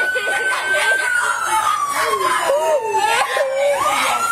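A police siren wailing: a single tone that falls slowly in pitch and then rises again near the end, with people's voices underneath.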